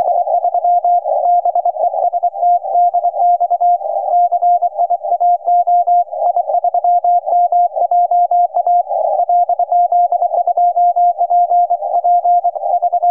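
Morse code (CW) signal from a ham radio: a single steady mid-pitched beep keyed rapidly on and off in dots and dashes.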